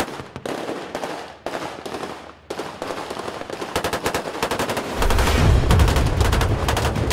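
Rapid automatic gunfire firing tracer rounds, in broken bursts at first and then a dense continuous rattle from about three and a half seconds in. About five seconds in, a louder, deeper rumble joins the firing.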